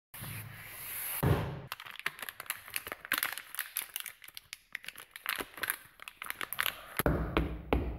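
Rapid, irregular crinkling and crackling clicks, like paper or plastic being crumpled. A louder crackle comes about a second in, and a low rumble joins the clicks near the end.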